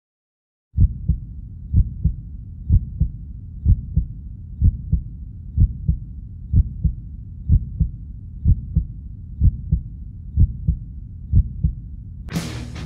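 Heartbeat sound effect: low double thumps, about one pair a second, over a low rumble. Loud electric-guitar rock music comes in near the end.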